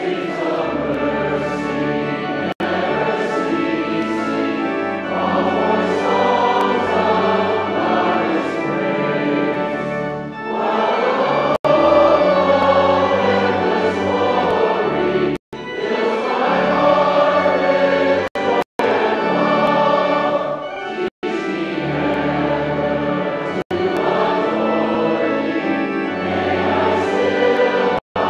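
A congregation singing a hymn together with instrumental accompaniment. The sound cuts out for a split second several times in the second half.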